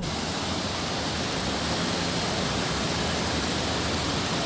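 Mountain river rushing over boulders and through rapids, a steady even sound of fast-flowing water.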